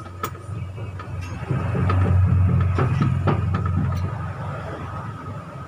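A motor vehicle engine running nearby, swelling louder about a second and a half in and then easing off, with a few light clicks over it.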